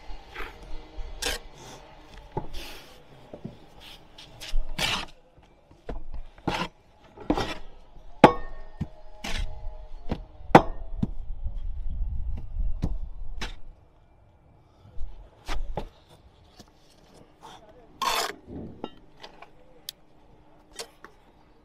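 Bricklaying trowel work: a steel trowel scraping mortar and tapping on bricks in a run of sharp clicks and scrapes. In the middle comes a few seconds of low rumble as his sleeve brushes against the microphone.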